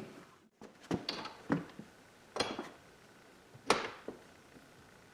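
Scattered clicks and clacks of tools and air-line fittings being handled while a three-way tee is fitted into a compressed-air line, about half a dozen separate knocks with the loudest near the middle.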